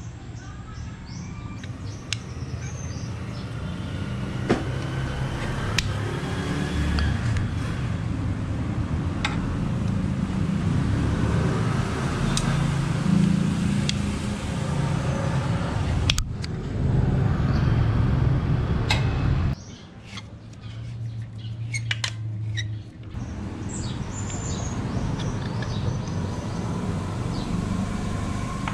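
Low rumble of motor vehicles running, building and then dropping off abruptly about two-thirds of the way through, with scattered sharp clicks and faint bird chirps.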